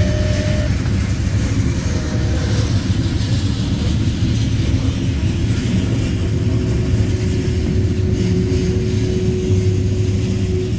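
Freight train cars rolling past close by, a steady loud rumble of steel wheels on rail, with a faint steady whine above it.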